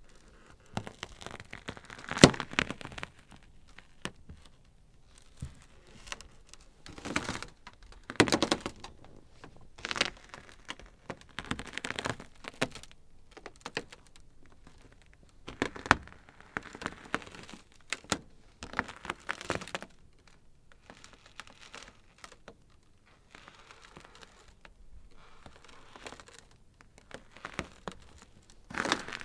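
Ice crackling: irregular sharp cracks and short crinkling bursts with quiet gaps between, the loudest cracks about two seconds in and about eight seconds in.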